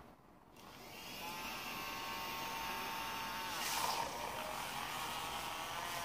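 Two handheld milk frothers running at once, their small motors whirring as the whisks froth milk in plastic cups. The whine starts about half a second in and settles to a steady pitch, with a brief louder surge a little past halfway.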